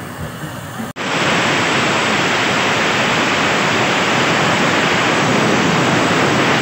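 A loud, steady rushing hiss without tone or rhythm that starts abruptly about a second in and holds level.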